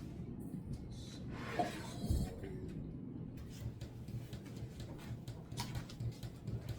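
Light clicks and knocks of kitchen items being handled over a low steady hum, with a brief louder rustle or scrape about a second and a half in.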